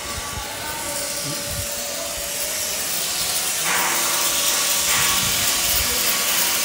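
Electric marble cutter running and cutting marble: a steady motor whine under a dense hiss that grows louder, with a harsher stretch from about three and a half to five seconds in.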